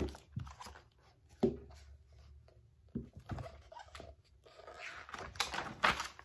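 A hardcover picture book being handled, with a few soft knocks, then paper rustling near the end as a page is turned.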